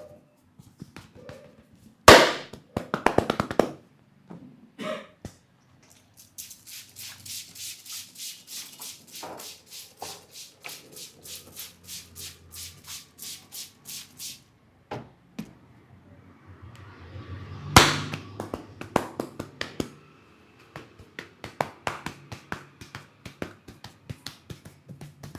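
Barber's hands slapping, chopping and tapping a customer's head and back during an Indian champi massage. A sharp slap about two seconds in is followed by a quick flurry of strikes, then a long, even run of about three light taps a second, and another loud slap with rapid strikes near the end.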